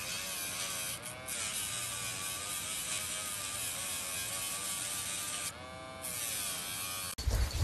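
Small battery-powered pet nail grinder whirring steadily with a high hiss as it files a Chihuahua's claw. Its pitch wavers slightly, and the hiss drops out briefly twice. It cuts off about seven seconds in, and a loud low rumbling follows.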